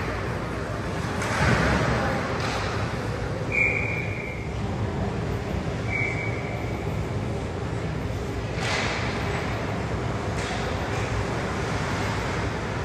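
Ice hockey game in an arena: skate blades scrape the ice several times over a steady hum of rink noise and distant voices. Two brief high tones come a couple of seconds apart.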